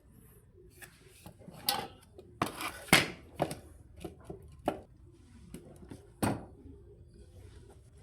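Wooden door parts being knocked and fitted together during assembly: a series of sharp wooden knocks and clatters at irregular intervals, the loudest about three seconds in.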